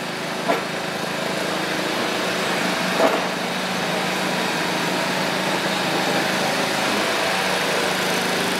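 Winery grape stemmer-crusher running steadily with a constant hum while de-stemming the fruit.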